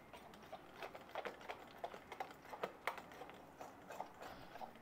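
A metal fork beating thick urad dal batter in a glass bowl: faint, irregular clicks and taps of the fork against the glass, several a second, as the batter is beaten to make it light and puffy.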